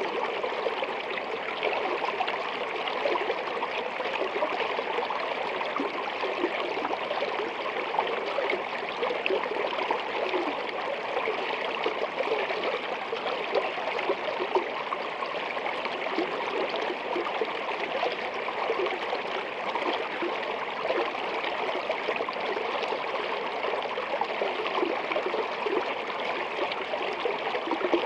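Steady running water, an even rushing flow.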